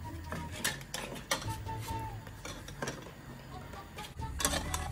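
Dry lasagna sheets clicking and tapping against the rim and sides of a metal pot as they are dropped in one by one, a few sharp clicks spread over several seconds.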